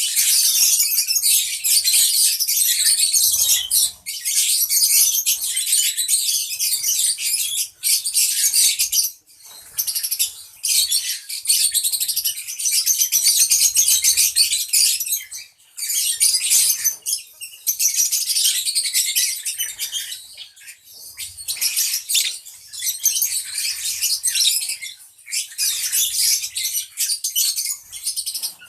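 A flock of lovebirds chattering with shrill, high-pitched calls, in long stretches broken by short pauses.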